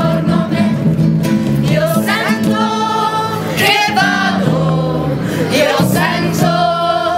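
Several voices singing a song together over acoustic guitar accompaniment.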